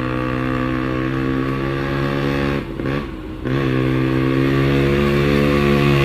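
A vehicle engine running hard at high revs with a steady, strong drone. About two and a half seconds in it briefly drops in pitch and loudness and wavers, then rises again and holds.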